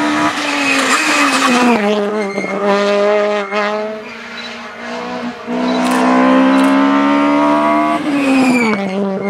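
Rally car engine revving hard at full throttle, its pitch held high, then dropping sharply as the throttle is lifted about two seconds in and again near the end.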